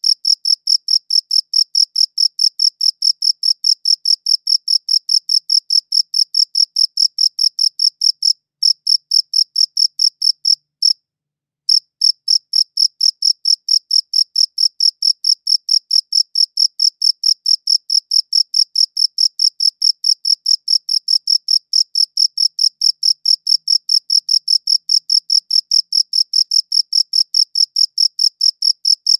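A cricket chirping steadily: short high chirps at an even rate of about four a second, broken by a brief pause about eight seconds in and a slightly longer one a few seconds later.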